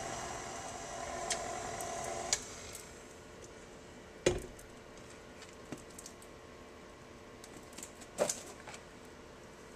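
Stand mixer's motor running with its flat beater turning through cornbread batter in a steel bowl, switched off a little over two seconds in. Then a few sharp knocks and clicks as the mixer is handled and its head raised, the loudest about four seconds in and another near the end.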